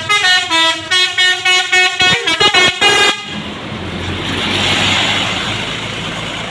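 A bus's Basuri telolet horn plays a quick tune of about a dozen short notes. It stops about three seconds in, and the rush of the passing bus swells and then fades.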